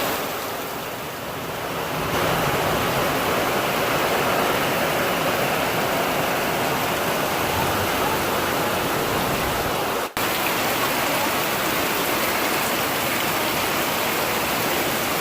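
Heavy rain pouring down: a loud, steady hiss of rainfall, briefly cutting out about ten seconds in.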